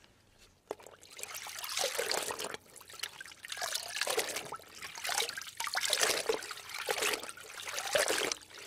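Running water trickling and splashing, rising and falling in uneven swells.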